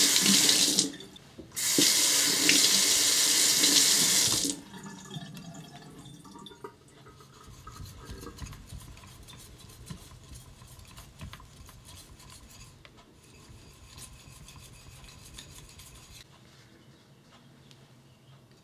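A kitchen tap running and splashing into the sink in two spells, about a second and then about three seconds, wetting the knife and stone. Then a quiet, steady scraping as a yanagiba blade is rubbed back and forth on a wet whetstone.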